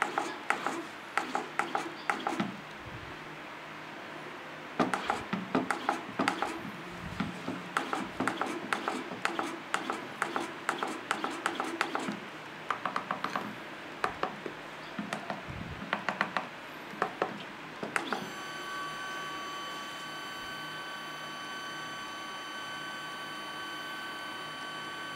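Small stepper motor jogged from a CNC controller's keypad, ticking in short bursts of clicks as it steps. About 18 seconds in it starts running continuously with a steady high whine made of several fixed pitches.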